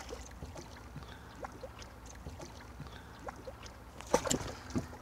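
Water splashing and lapping at the side of a small boat as a hooked spotted smooth-hound thrashes at the surface, with a louder splash about four seconds in and a smaller one just after. A low steady hum runs underneath.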